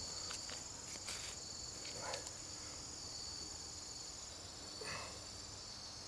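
Crickets trilling steadily in the background, with a few faint scrapes of bare hands digging through loose soil.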